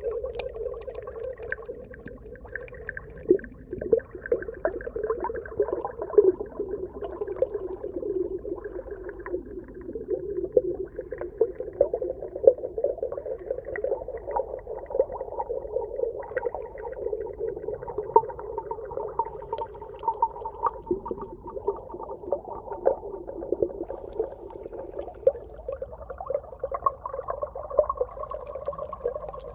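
Underwater ambience: a steady, muffled murmur with many small crackles throughout and no high sounds.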